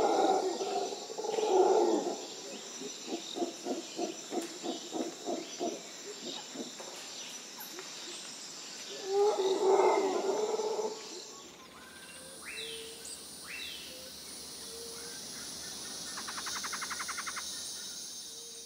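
Wild animal calls: two loud calls near the start, a run of short pulses about three a second, and another loud call about nine seconds in. After about eleven seconds it gives way to quieter bird chirps and a fast trill.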